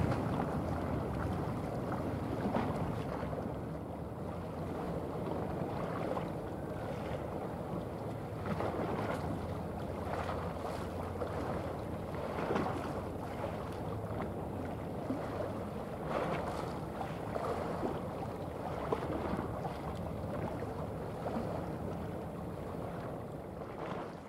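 Passing container ship heard from shore: a low, steady engine hum under wind buffeting the microphone and the wash of water. The sound fades out at the very end.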